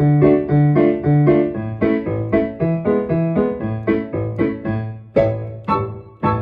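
Keyboard playing an instrumental interlude: chords struck at a steady pace of about three a second over a repeating bass line.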